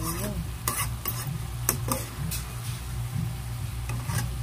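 Spatula stirring and scraping chopped bamboo shoots in a frying pan, with several sharp knocks of the spatula against the pan in the first two seconds, over a steady low hum.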